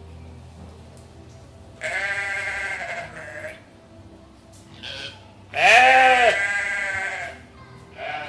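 Goats bleating: a long call about two seconds in, a brief one around five seconds, then the loudest, a long call that rises and falls in pitch, and another starting near the end.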